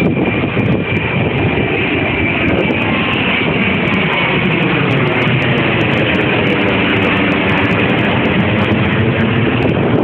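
Jet airliner flying low overhead, its engine noise loud and steady, with a slowly sliding hollow tone in it as it passes.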